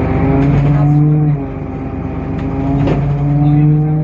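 DAF PR 228 diesel engine of a Temsa Avenue LF city bus running while the bus is under way, with a steady droning tone. The tone drops out and the level dips about a second and a half in, then picks up again near the end.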